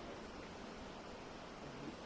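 Faint, steady hiss of running water.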